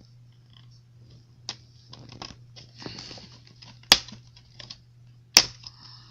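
Scattered light clicks and taps of plastic laptop parts being handled, with two sharp, louder clicks about four and five and a half seconds in, over a steady low hum.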